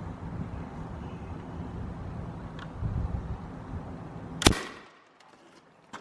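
Daisy PowerLine 880 multi-pump pneumatic air rifle firing once, about four and a half seconds in: a single sharp crack that dies away quickly. Before the shot there is a low rumble of wind on the microphone.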